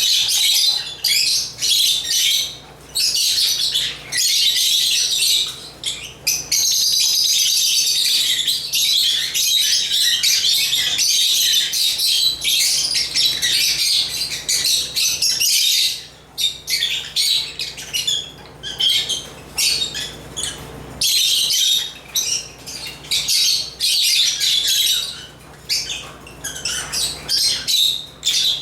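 African lovebirds (Agapornis) chirping and chattering in long, fast, high-pitched runs, broken by a few short pauses.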